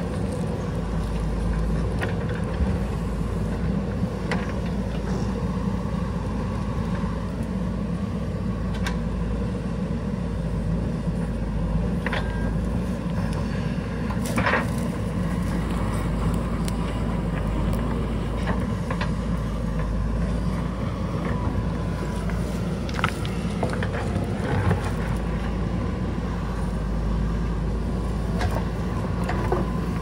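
JCB backhoe loader's diesel engine running steadily under load as the backhoe bucket drags and levels loose soil, with scattered sharp knocks from the bucket and arm.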